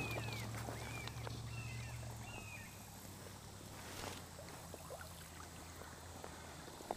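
Quiet creekside outdoor sound: a bird chirping several short times in the first two seconds or so, over a faint steady low hum that fades out about halfway through. A faint knock or two later on.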